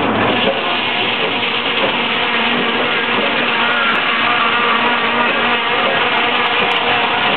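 Sawmill machinery running steadily: a continuous engine-driven noise that holds level without a break.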